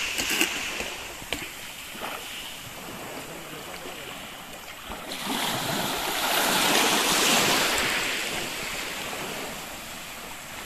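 Sea waves washing onto a beach, one wave swelling up about halfway through and then falling away.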